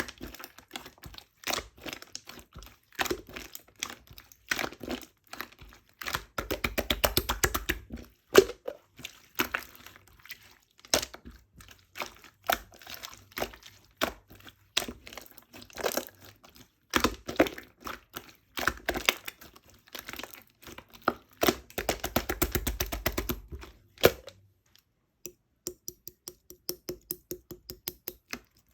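Small objects being handled: a steady run of sharp clicks and knocks with some crinkling, two longer clattering stretches, and a quick even series of light taps near the end.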